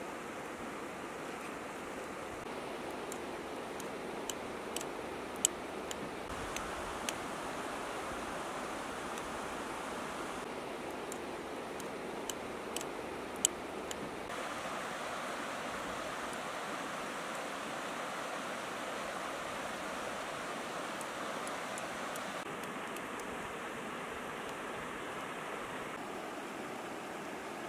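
Steady rushing of a river flowing over stones, with a few light sharp clicks in the first half.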